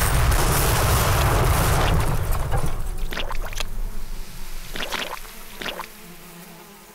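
Cartoon explosion sound effect: a loud blast rumbling and fading over about three seconds, followed by a few short splats of manure falling.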